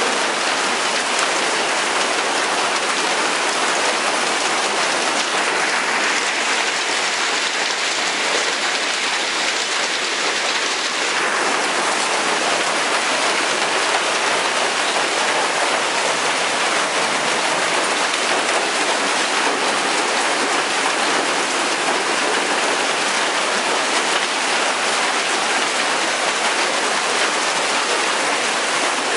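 Heavy hail and rain pelting the deck, roofs and yard in a dense, steady clatter and hiss.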